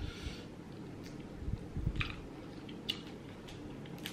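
Close-miked eating sounds: crab shell cracking and being picked apart with the fingers, giving a few sharp clicks, along with dull wet chewing thumps about one and a half to two seconds in.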